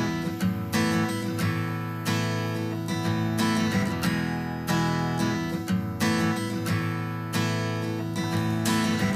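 Background music: plucked acoustic guitar playing a steady, regular pattern of notes.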